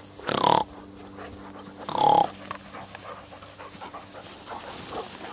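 A dog panting, with two short loud calls from the dog about a second and a half apart near the start.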